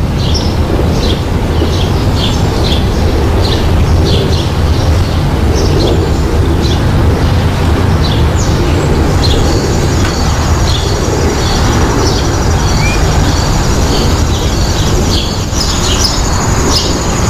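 Birds chirping in short repeated calls over a loud, steady low rumble. A thin, steady high whine joins about halfway through.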